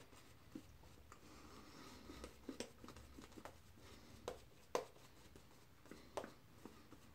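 Faint swishing of a synthetic shaving brush working lather over the face, with a few soft clicks along the way.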